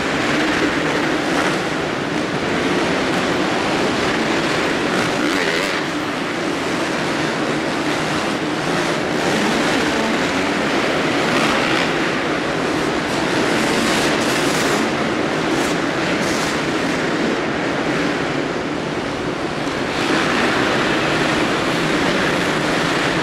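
Several motocross bikes racing on an indoor dirt track, their engines revving and blending into one loud, steady noise inside the hall.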